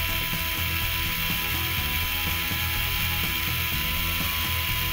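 Lego-compatible copy of a Power Functions M motor running at speed with its gearbox engaged. It makes a loud, steady, high-pitched whir with a gear rasp, measuring about 92 dB on a sound level meter.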